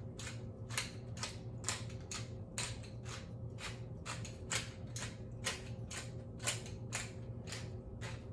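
Hand pepper mill grinding fresh black peppercorns: a steady run of short crunching strokes, about three a second.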